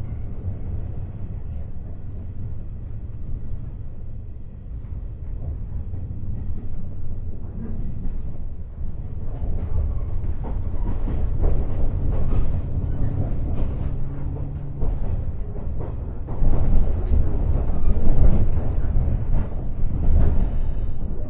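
Running sound heard inside a JR West 103 series electric train, recorded in driving trailer car KuHa 103-200: a steady low rumble of wheels on the rails. It grows louder about two-thirds of the way through, with some knocks.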